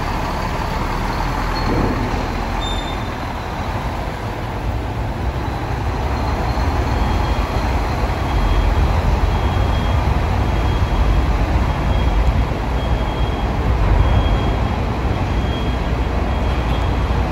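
Diesel engines of heavy trucks running as they drive onto a ferry's enclosed vehicle deck, a steady deep rumble. From about seven seconds in, a short high electronic beep repeats about once a second.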